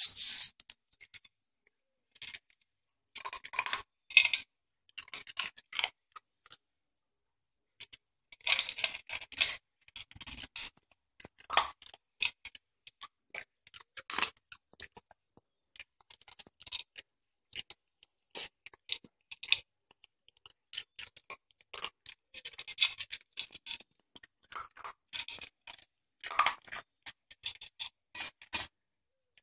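A dachshund eating dry food from a metal bowl: irregular bursts of crunching and scraping, with clinks against the bowl and short pauses between mouthfuls.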